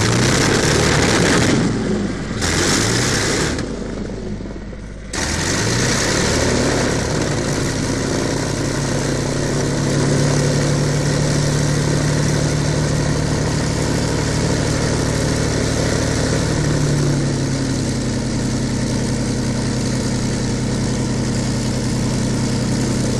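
De Havilland Mosquito's Rolls-Royce Merlin V12 engines starting: uneven, sputtering bursts for the first few seconds, then about five seconds in an engine catches and settles into a steady run, its pitch shifting slightly about seventeen seconds in.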